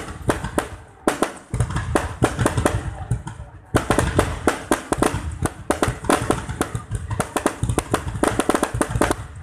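Fireworks going off in a dense, rapid string of sharp bangs and crackles, with a low booming underneath.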